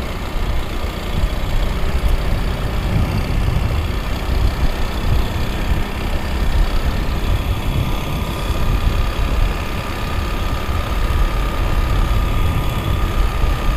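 Motorcycle riding at cruising speed: engine running steadily under heavy wind rush and road rumble on the on-bike microphone. A faint steady whine joins about halfway through.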